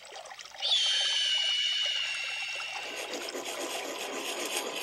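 A high ringing tone starts about a second in and fades over the next two seconds. Then comes a steady rasping scrape of a sharpening stone worked against a hatchet blade clamped in a vise.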